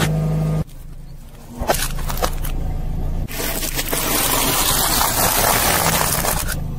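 Car tyre slowly rolling over and crushing things: a few sharp cracks, then about three seconds of dense crunching and crackling of brittle dry pasta breaking under the tyre.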